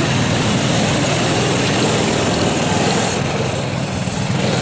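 Small engines of several children's mini snowmobiles running as they ride close by; a hiss in the sound drops away about three seconds in.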